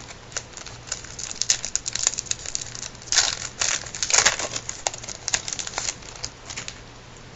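Crinkling and rustling of a baseball card pack wrapper being opened and handled: a run of sharp crackles, densest in a burst about halfway through.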